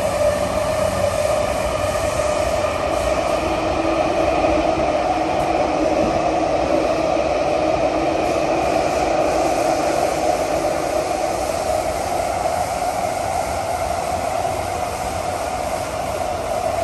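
A CT251 metro train running on the Thomson-East Coast Line, heard from inside a passenger car: steady wheel-and-rail running noise under a constant tone that holds throughout and eases slightly near the end.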